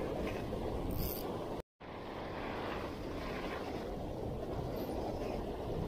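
Wind buffeting the microphone over the steady wash of breaking surf and foam, with a brief total dropout a little under two seconds in.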